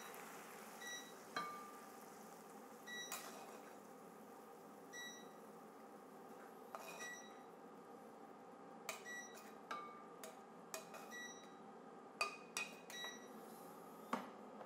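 Metal kitchen tongs clinking against a frying pan and a ceramic serving dish while pasta is lifted out and served: scattered light metallic clinks, each with a short ring, coming more often in the second half, over a steady faint hum.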